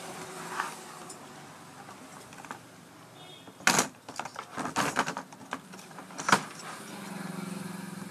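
Clattering knocks and rattles from the induction cooker's circuit board and plastic casing being handled and shifted about, three sharpest a little past halfway. A low steady hum comes in near the end.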